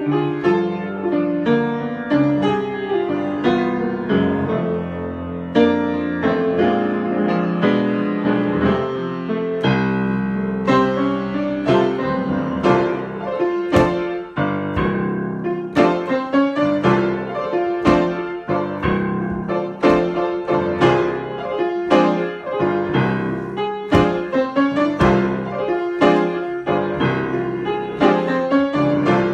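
Solo piano improvisation: a continuous run of struck notes and chords.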